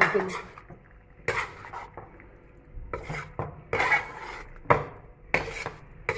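Metal spoon scraping and clattering against a metal cooking pot while macaroni is stirred and tossed, in about eight short, irregular strokes.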